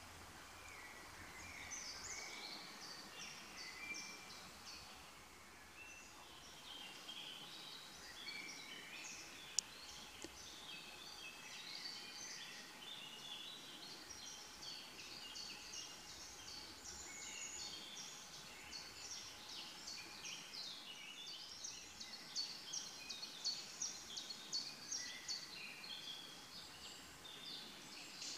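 Many small birds chirping and singing, short high calls coming thick and fast and busiest in the second half, over a faint steady hiss. A single sharp click about ten seconds in.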